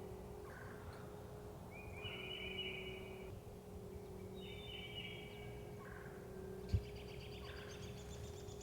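Wild turkeys gobbling and calling several times, about a second each, with a faster rattling call near the end. A single sharp knock about seven seconds in.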